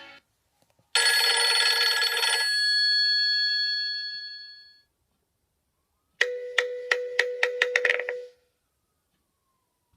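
Two short Nokia ringtone/alert tones played on a Nokia X2-00 phone. The first is a bright chime about a second in that rings on and fades away over a few seconds. After a pause comes a two-second tone of quick, evenly spaced clicking strikes over a steady low note.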